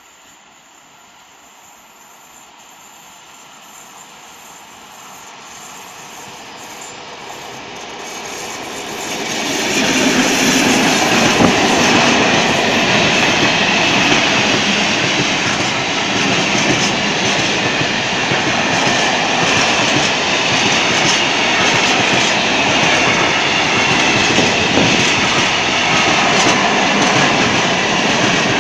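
A TEM2 diesel-electric locomotive and its freight train approach, growing steadily louder for about ten seconds. Then a long train of open coal wagons rolls past close by with a loud, steady rumble and clatter of wheels on the rails.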